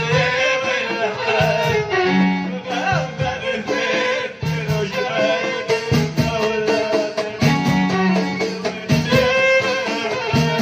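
Live Moroccan folk music: hand-held frame drums, some with jingles, beat a steady driving rhythm under a violin played upright on the knee.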